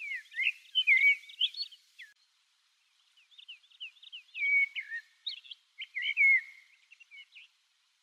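Male common blackbird singing two phrases of quick, varied whistled notes, the second starting after a pause of about a second.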